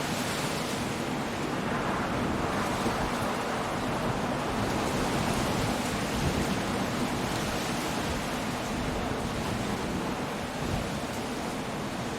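Coastal storm: waves breaking and surging against the shore under wind and rain, a steady dense wash of noise that swells slightly about two seconds in.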